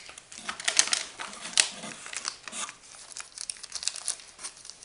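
Plastic parts bags crinkling and rustling as hands handle and sort them, an irregular run of crackles with the loudest ones about a second and a half in.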